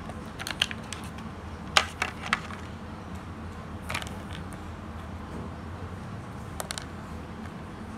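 Clear plastic packaging and small plastic doll accessories being handled: scattered clicks and crackles, the sharpest about two seconds in.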